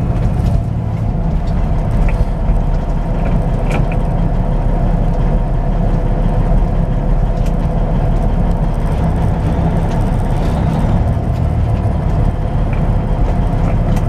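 Semi-truck's diesel engine running steadily as the truck rolls slowly, a constant low rumble with a steady drone over it, heard from inside the cab.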